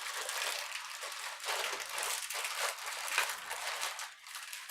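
Blind-box packaging being handled and opened: irregular crinkling and rustling of the cardboard box and the plastic bag inside.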